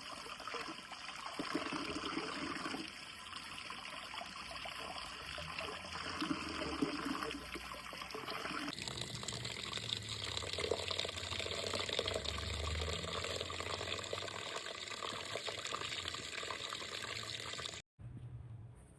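Water running and trickling steadily. The sound changes character about nine seconds in and cuts off abruptly near the end.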